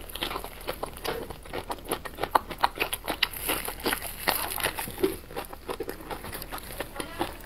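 Close-up eating sounds of a person biting and chewing blistered green peppers coated in chili sauce: a dense, irregular run of wet mouth clicks.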